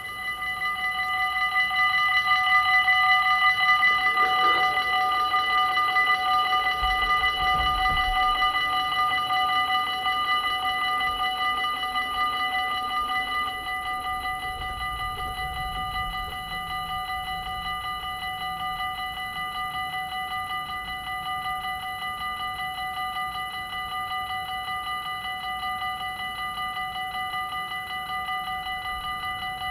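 Dutch level-crossing warning bell ringing continuously as the crossing activates. About 13 seconds in, once the barriers are down, it drops to a quieter ring.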